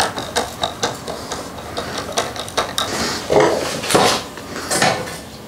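Irregular metallic clinks, clicks and knocks of an auxiliary LED light pod and its fork-mount bracket hardware being handled and adjusted by hand, the heaviest knocks between about three and five seconds in.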